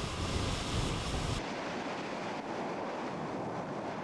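Ocean surf churning with a deep rumble. It cuts off suddenly about a second and a half in, giving way to a quieter, steady noise without the low rumble.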